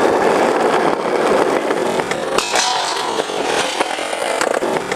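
Skateboard wheels rolling on rough asphalt, a loud steady rumble, with sharper clicks and scraping from about halfway as the board's metal trucks meet and grind a metal rail in a 50-50.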